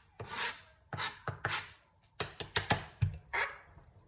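Irregular rustling, scraping and light knocks from an onion being handled and peeled on a cutting board, in quick uneven strokes.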